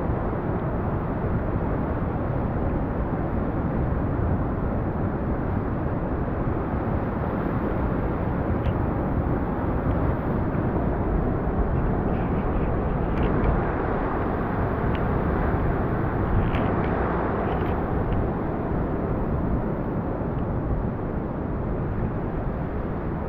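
Ocean surf breaking and washing over a rock jetty: a steady, loud rush of waves.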